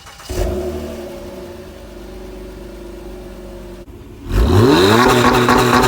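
Honda Accord Coupe 3.5-litre V6 running through a freshly fitted Borla S-Type axle-back exhaust: it starts with a short flare and settles to a steady idle, then about four seconds in it is revved up and held at high revs, much louder.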